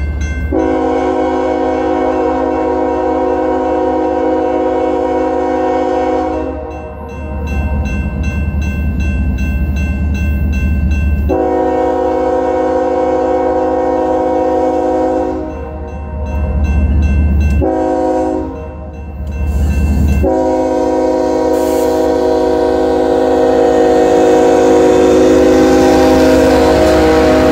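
BNSF locomotive's multi-chime air horn sounding the grade-crossing signal: two long blasts, one short, then a final long blast held as the locomotive comes up close, with rail noise rising near the end. A crossing bell rings in the gaps between blasts.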